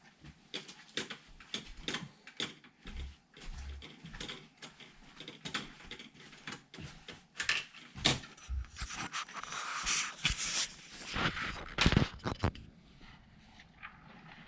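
Hands handling computer parts and small hardware during a PC build: a run of irregular clicks, taps and light knocks, with a stretch of rustling and scraping in the later part and the sharpest knocks near the end.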